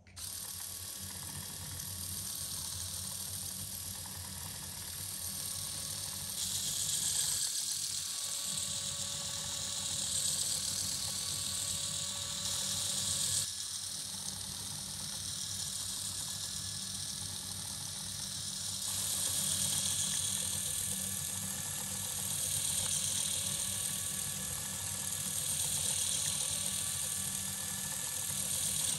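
LEGO Technic oscillating fan running: its small electric motor and gear train whir steadily, with a hiss of air from the propeller that swells and fades every few seconds.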